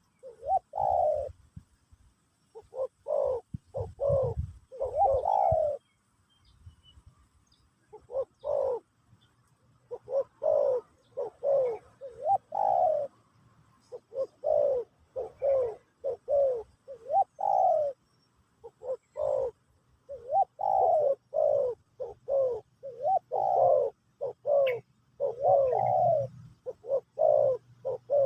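Spotted dove cooing: phrase after phrase of short coos, each note bending in pitch, with brief pauses between phrases.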